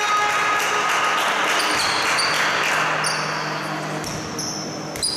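Basketball game sounds in a sports hall: sneakers squeaking on the hardwood court over steady hall noise, with a horn-like tone that ends about a second in.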